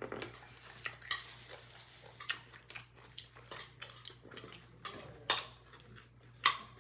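Scattered light clinks and taps of dishes and spoons on a dinner table, a few separate knocks with the loudest near the end, over a faint steady low hum.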